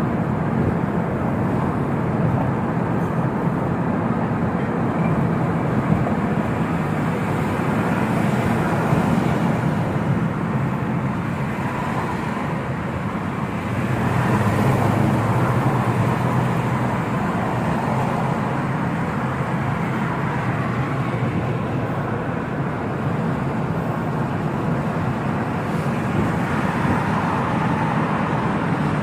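Car driving on the road, heard from inside the cabin: a steady rumble of tyres and engine, growing a little louder about halfway through.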